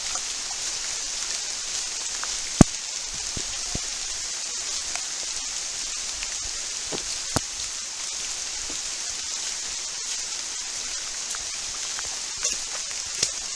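Pouring rain, a steady hiss with scattered sharp clicks of close drops, the loudest about two and a half and seven seconds in.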